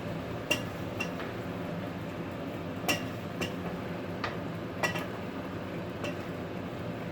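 A metal utensil clinking against the pot while stir-frying noodles, about seven irregular strikes with a short metallic ring, over a steady background hiss.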